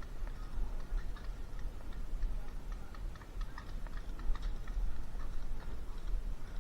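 Scattered light clicks and ticks at an irregular pace over a steady low rumble: airsoft fire and BB strikes during a close-quarters game.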